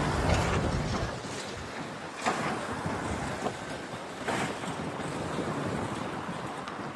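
A six-storey concrete building collapsing after an excavator strikes it: a deep rumble that fades about a second in, then a steady rush of falling rubble and dust, with sharp cracks about two and four seconds in.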